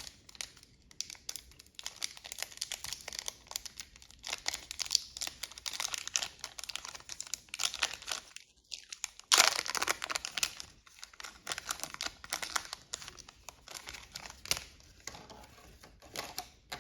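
Foil Yu-Gi-Oh booster pack wrappers crinkling as they are handled and torn open, a dense crackle that is loudest about halfway through.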